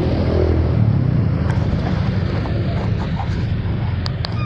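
Motorbike riding in slow, dense traffic: its engine running steadily under wind and road noise, with a brief rise in engine pitch at the start and two sharp clicks near the end.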